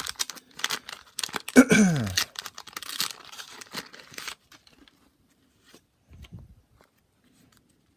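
Wax-paper wrapper of a 1989 Donruss baseball card pack being torn open and crinkled: a dense run of crackles over the first four seconds or so, then only faint handling.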